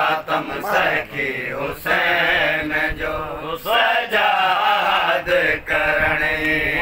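Men chanting a Sindhi matam noha, a mourning chant for Hussain, in sung phrases broken by short pauses.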